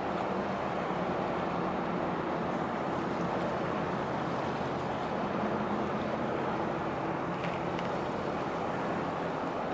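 Steady low drone of a fishing trawler's diesel engine as the vessel motors slowly past, mixed with a continuous rush of background traffic noise.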